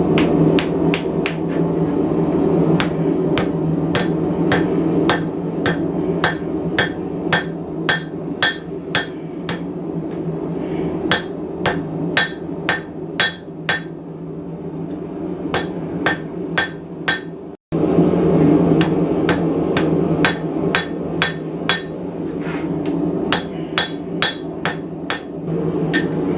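Blacksmith's hammer striking hot steel on an anvil to draw out the stock: runs of blows about two a second, each with a brief ring, broken by short pauses. A steady low rumble runs underneath.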